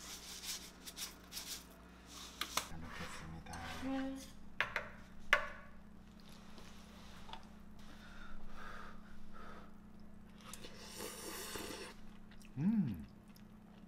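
Wooden chopsticks clicking against a ceramic bowl and moving through saucy glass noodles: a few sharp clicks among softer clatter.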